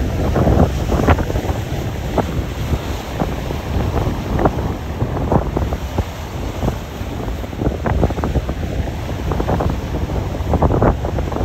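Sea surf breaking and foaming over rocks, with strong wind rumbling on the microphone throughout.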